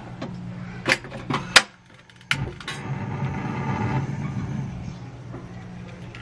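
Kitchen stove being switched on: a few sharp clicks in the first second and a half, then a steady rushing noise that starts suddenly about two seconds in, swells and slowly fades, over a low steady hum.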